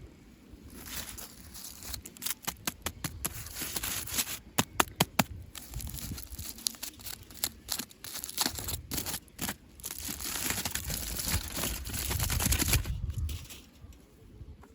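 Toy packaging being handled and opened: crinkling and rustling with many sharp clicks, starting about a second in and stopping near the end.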